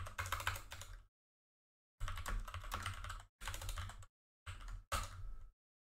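Typing on a computer keyboard: rapid keystrokes in several bursts, broken by short silent pauses, the longest about a second in.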